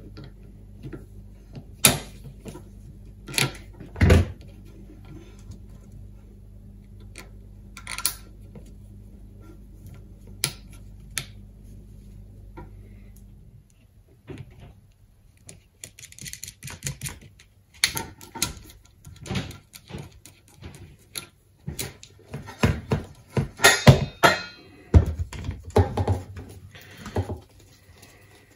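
Scattered clicks, taps and knocks of hands working a plastic conduit coil former, a small metal fitting and a spool of enamelled copper wire on a wooden board. The clicks come thicker in the second half as wire starts going onto the tube. A low steady hum underneath stops about halfway through.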